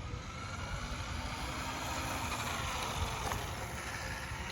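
Kyosho Cosmo radio-controlled car's electric motor whining as it drives, the pitch rising and falling as the car speeds up and slows, over a low rumble.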